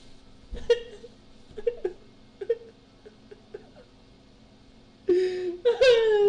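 A man laughing helplessly: short, squeaky gasps and wheezes with pauses between, then a loud, long, high laugh near the end whose pitch slides slowly down.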